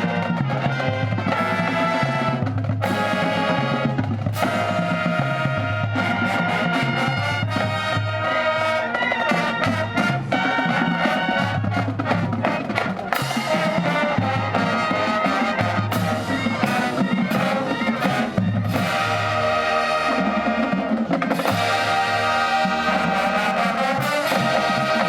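High school marching band playing: brass (trumpets and trombones) holding loud chords over drum-line percussion strokes.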